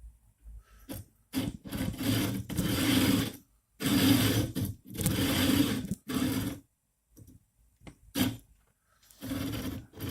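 Anet A8 X-axis carriage pushed back and forth by hand along its smooth rods, about seven strokes of grinding, humming rolling noise from the linear bearings. The carriage is binding: the bearings are forced out of line by a bearing holder 0.1 mm taller than the other.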